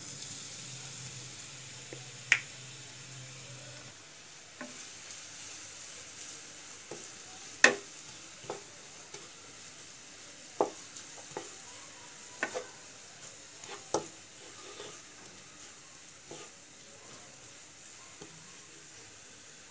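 Chopped onions sizzling in hot oil in a pan, stirred with a wooden spatula that knocks against the pan every few seconds, the sharpest knocks about two and eight seconds in.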